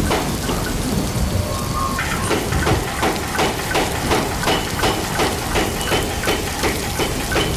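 Homemade mechanical power hammer running, its ram striking the dies in a steady rhythm of about three blows a second over a continuous low motor rumble.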